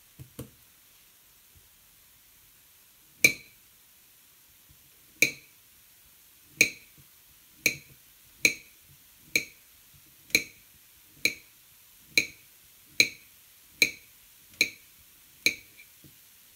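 Knife slicing a banana on a plate: each cut ends in a sharp clink of the blade against the plate. After a couple of faint taps at the start, thirteen clinks come about once a second, a little faster towards the end.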